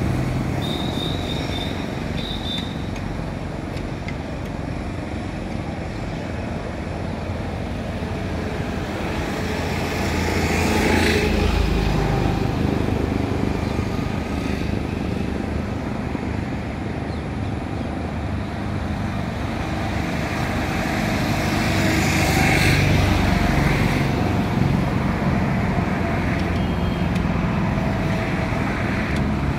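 Road traffic: a steady background of vehicle noise, with one vehicle passing close about eleven seconds in and another at about twenty-two seconds.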